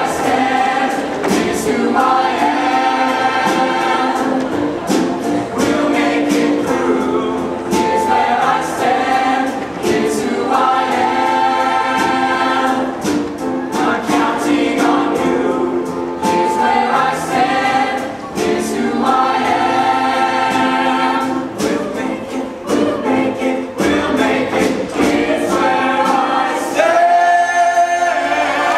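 Mixed show choir singing a song in harmony over an accompaniment with a steady beat, rising to a loud held note near the end.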